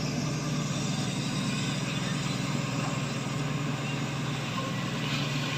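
Shantui excavator's diesel engine running steadily under work, a constant low hum.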